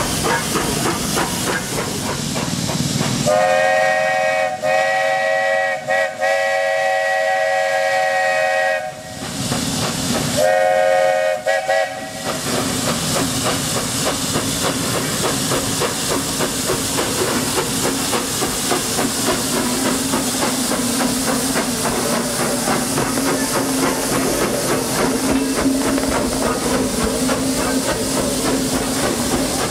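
A train sounding a chord whistle of several notes in two blasts: a long one about three seconds in, with two brief breaks, then a short one about ten seconds in. Under and after it runs a steady hissing, rushing noise with a fast, even pulse.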